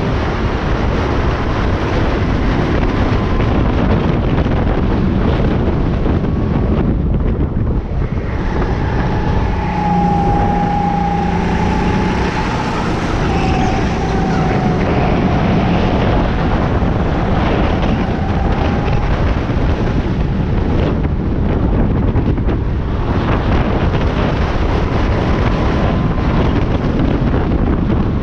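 Go-kart engine running at racing speed, heard from on board under heavy wind buffeting on the microphone. An engine whine stands out for several seconds around the middle.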